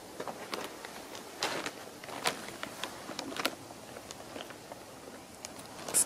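Footsteps in snow: a few irregular crunches and crackles underfoot. A loud rustle starts right at the end.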